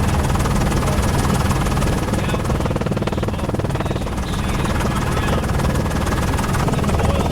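Helicopter rotor and engine noise heard from on board a news helicopter: a steady, loud drone with a rapid, even rotor beat.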